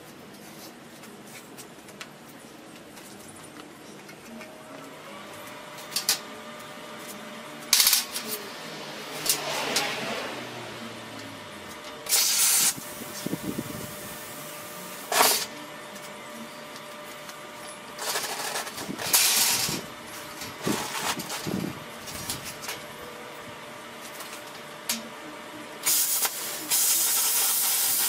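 Scattered knocks and scrapes of steel pieces being handled on a metal workbench. Near the end a power cutting tool starts cutting through steel plate with a steady hiss.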